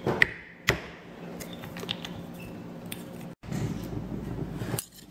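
Two sharp knocks in the first second, then softer clicks, from a metal spoon and lumps of palm sugar handled in a stone mortar.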